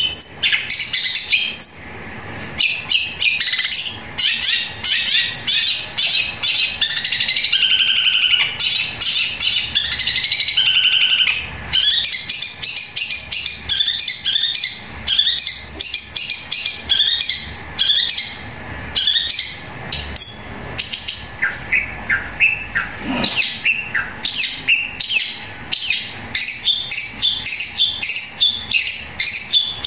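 Caged long-tailed shrike (cendet) singing a loud, long, rapid stream of sharp chirps and chattering, in the style of Eurasian tree sparrow (burung gereja) calls. There are brief pauses about two and eleven seconds in.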